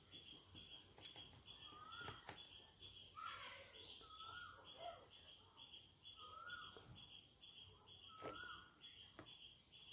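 Near silence with faint background birdsong: a short rising chirp about every two seconds over a steady, high, quick pulsing call.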